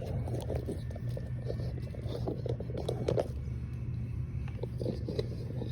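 Light clicks and scrapes of a small nut being worked into an RC truck's chassis brace with needle-nose pliers, over a steady low hum.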